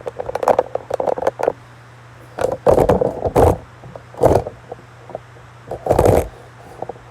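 A steady low hum, with small clicks early on and then three louder scraping, rustling noises like things being handled on a workbench.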